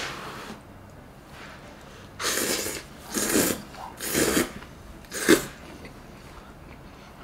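A person blowing on a hot piece of stewed beef to cool it: about four short breathy puffs from about two seconds in, the last one sharp and loud.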